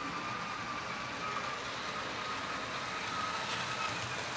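Tyco HO scale Alco C-430 model locomotive running and pulling a long freight train: a steady high motor whine over the rolling hiss of wheels on the track.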